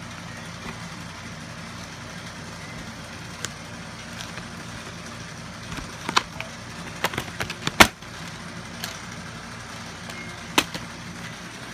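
Plastic VHS clamshell case being handled and opened and the cassette taken out: a cluster of clicks and snaps about six to eight seconds in, the loudest near eight seconds, and another click near the end, over a steady low hum.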